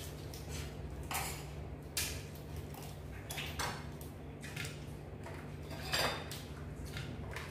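Table clatter of a crab meal: about six sharp clicks and cracks of crab shells and dishes as the crabs are broken apart and eaten, the loudest near the end.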